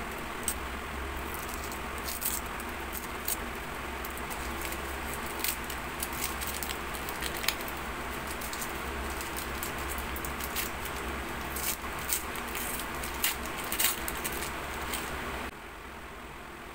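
Thin paper wrapper being peeled and crinkled off a solid shampoo bar by hand: irregular sharp crackles over a steady background hiss. The crackling stops near the end.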